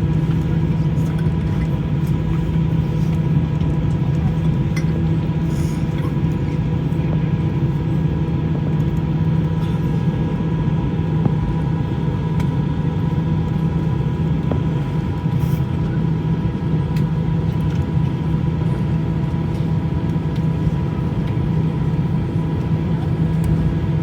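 Steady airliner cabin noise after landing: a low, even drone of engines and air conditioning, with faint steady whines above it and a few small clicks.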